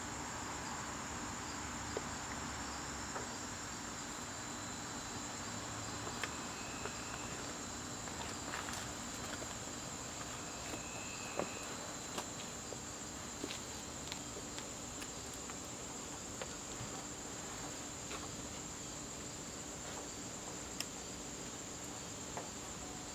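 Crickets chirping in a continuous, steady high-pitched trill, with a few faint scattered clicks.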